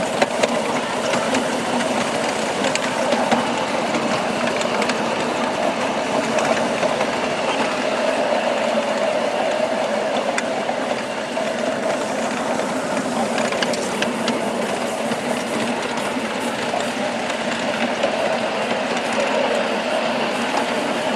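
Ride-on miniature railway train running past at a steady pace, with an even mechanical clatter from its locomotive and its wheels on the rails.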